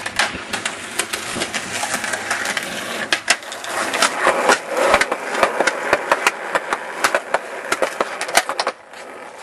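Skateboard wheels rolling over rough ground, a steady grinding hiss with frequent sharp clicks and clacks. The rolling stops near the end.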